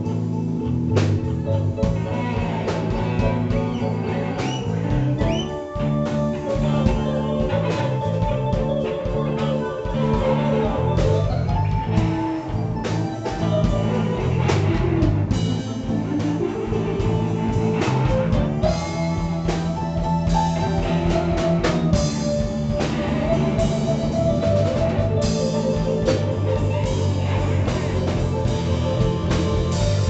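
Live blues-rock band playing an instrumental passage: drum kit and bass keeping a steady beat under electric guitar and keyboard, with a lead line of bending notes.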